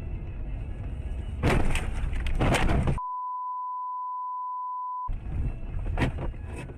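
A steady, pure beep tone lasts about two seconds in the middle and replaces everything else while it sounds. Before and after it there is rough, noisy rumbling with sharp knocks.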